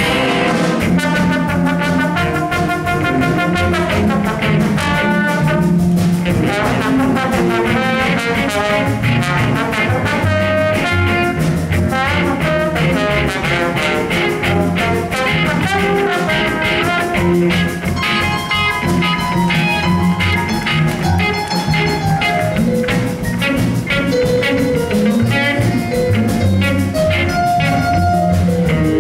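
School jazz band playing, with a trombone standing to take a solo over the band's saxophones, electric guitar, upright bass and drums.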